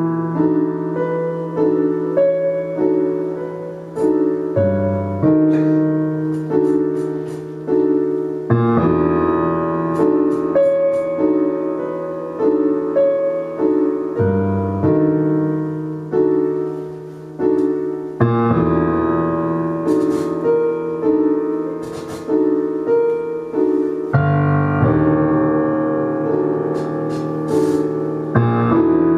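Slow keyboard music: sustained piano-like chords over a low bass note, the chord changing every few seconds, with short clusters of high ticks now and then.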